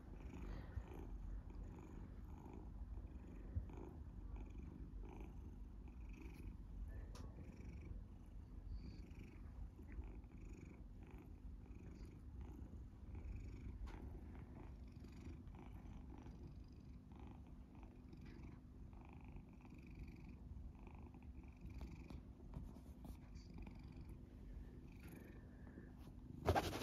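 Scottish Fold cat purring steadily.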